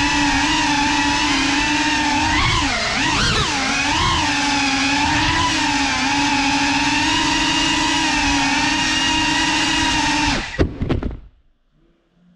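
GEPRC Cinelog 35 cinewhoop drone's motors and propellers whining steadily, the pitch dipping and rising a few times about 2 to 4 seconds in as the throttle changes. About ten seconds in there are a few sharp knocks as the drone hits furniture, and the motors cut out.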